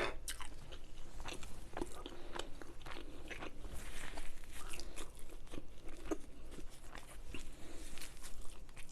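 A person chewing a mouthful of chicken tikka masala close to the microphone, with many small irregular mouth clicks and crunches.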